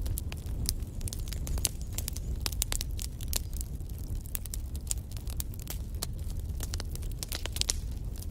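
Wood fire burning in a fireplace, with irregular sharp crackles and pops from the logs over a steady low rumble of the flames.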